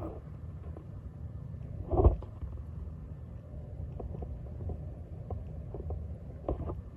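Cool-mist humidifier running with a steady low hum and a few soft knocks, the loudest about two seconds in.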